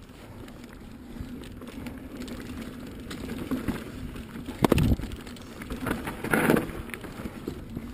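Pivot Switchblade carbon mountain bike rolling down a dirt trail: steady tyre rumble and frame rattle, with two loud clattering knocks from the bike hitting bumps, about halfway through and again about a second and a half later.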